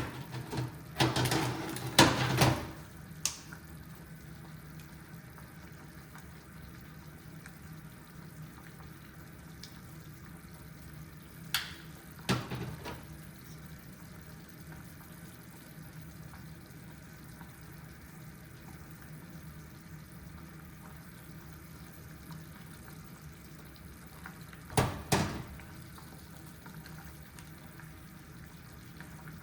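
Steady rush of water in a kitchen, broken by short clusters of clattering knocks near the start, about twelve seconds in, and again about twenty-five seconds in.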